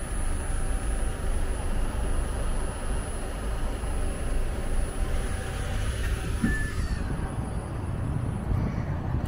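City traffic: a double-decker bus's engine running close by, a steady low rumble with general street noise.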